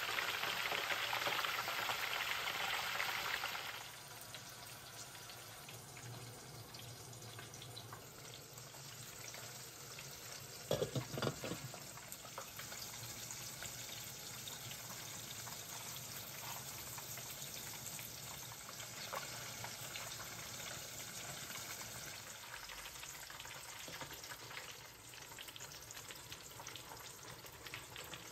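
Food frying in a pan, loud sizzling for the first few seconds that then drops to a quieter, steady sizzle. A brief clatter about eleven seconds in.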